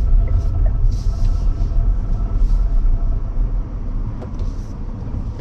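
Deepal SL03 electric car rolling along with heavy low road rumble and a repeated light metallic tapping from the right rear wheel area, like something knocking on a pipe. The owner traces it to a stray piece of wire striking a pipe under the car. The rumble eases off near the end as the car slows.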